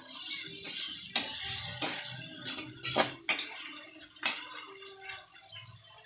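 A spatula scraping and knocking against a wok as large shrimp are stirred in sizzling butter and garlic. There are several sharp knocks, the loudest a little over three seconds in, over a steady hiss that grows quieter toward the end.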